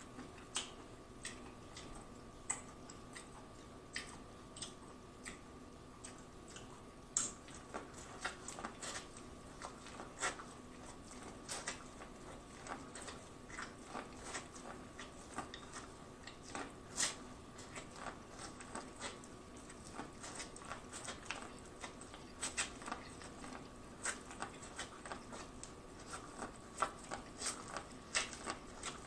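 Close-miked eating of boiled corn on the cob: irregular crisp clicks and wet crunches as kernels are bitten off the cob and chewed, coming more often in the second half. A faint steady hum runs underneath.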